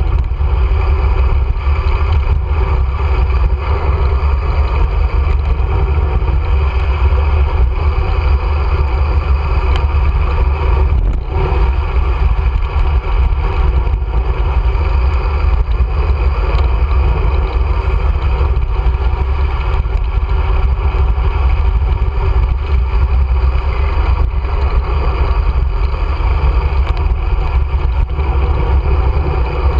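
Steady, loud wind rush buffeting a GoPro's microphone on a fast downhill bicycle descent, a deep rumble with hiss above it.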